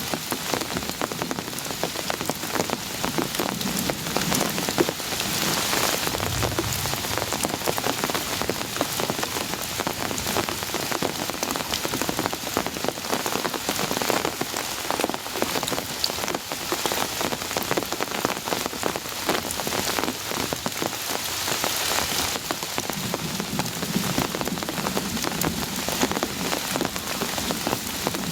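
Heavy rain falling steadily, a dense patter of countless drops hitting surfaces, swelling slightly in strength a couple of times.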